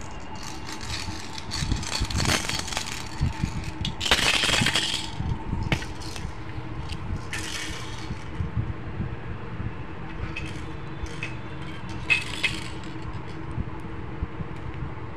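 Irregular knocks, clicks and rattles of plastic toys being handled and knocked about by a baby, with a louder clattering spell about four seconds in.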